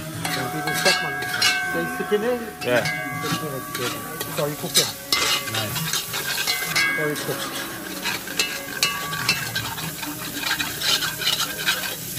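Long metal spoon stirring and scraping curry paste frying in oil in a large aluminium pot, with the paste sizzling. This is the curry being cooked down in hot oil before water goes in.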